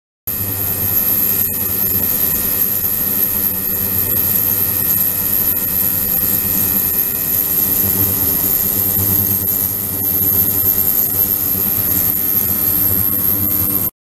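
Ultrasonic cleaning tank's submerged transducer running in water: a steady hiss and hum with a thin, constant high-pitched whine above it.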